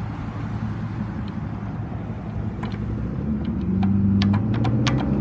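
Road traffic at an intersection: car engines running, one getting louder a few seconds in. Over it, from about halfway through, comes a quick irregular run of sharp clicks.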